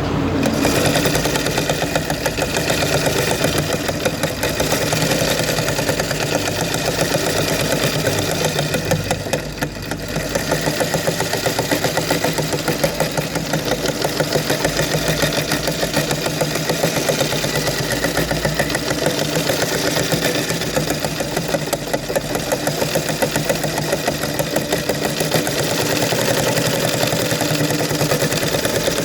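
Sewing machine running fast and continuously, a dense rapid rattle of needle strokes, dipping briefly about ten seconds in.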